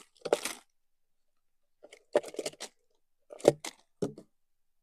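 Wrapped peanut chikki bars tipped out of a clear plastic jar onto the lap, the packets clattering together and their plastic wrappers crinkling in three short bursts.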